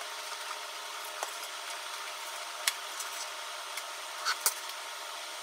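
Kitchen knife slicing through a rolled omelette, with a few sharp taps as the blade meets the cutting board, the loudest about four and a half seconds in, over a steady faint hiss.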